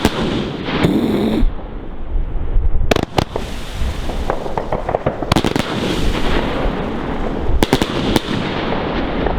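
New Year's fireworks going off: a continuous crackling hiss, broken by sharp bangs that come in clusters about three, five and a half and eight seconds in.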